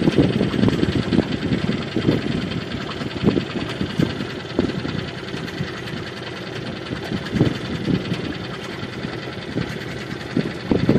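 Sailboat's auxiliary engine running at idle: a steady mechanical drone with uneven low pulses, a little louder in the first two seconds.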